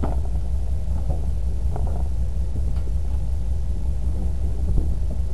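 An engine running steadily at idle, a low even rumble, with a few faint knocks over it.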